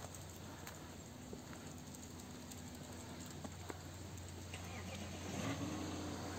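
Quiet outdoor ambience: a steady low hum with a few soft ticks, and a faint pitched drone that grows a little louder about five seconds in.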